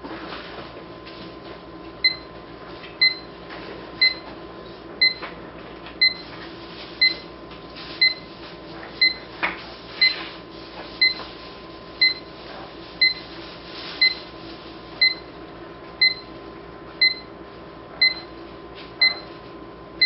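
Electronic LCD alarm clock's alarm beeping: a short, high beep once a second, starting about two seconds in, over a steady low hum. A few faint knocks come near the middle.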